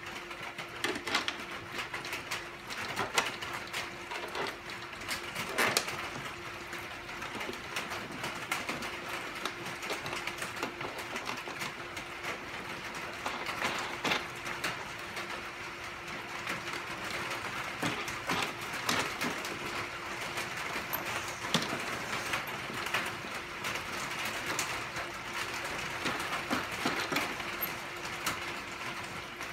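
Irregular clicks and taps of metal bolts and wing nuts being handled and fitted into the seams of a two-piece concrete bench leg mold. Under them is a faint steady hum.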